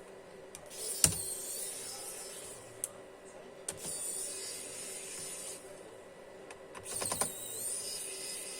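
Bottom service cover of an HP ProBook 4520s laptop being unscrewed and taken off: sharp plastic and metal clicks, with two stretches of high whirring about two seconds long, one after the first loud click and one near the end.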